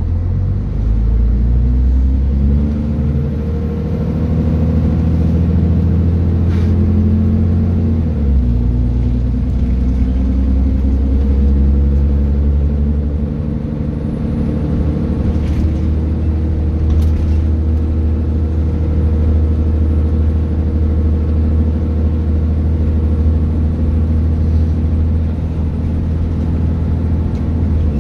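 Scania Citizen bus engine pulling under load. Its note climbs for several seconds, drops abruptly at a gear change about eight seconds in, then runs on fairly steadily.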